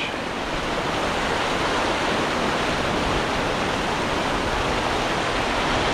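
Brook water rushing, a steady, even flow of noise.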